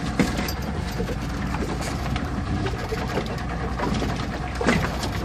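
Steady low rumble of wind on the microphone aboard a small boat, with a few light scattered knocks and clicks as the lobster catch is handled on deck.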